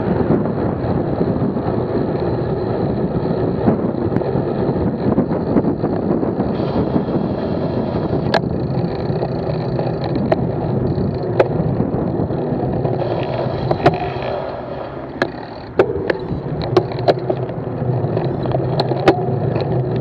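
Wind rushing over a bike-mounted action camera's microphone, with road noise from the moving bicycle. It is broken by sharp clicks and knocks, more often in the second half, and eases briefly about three quarters of the way through.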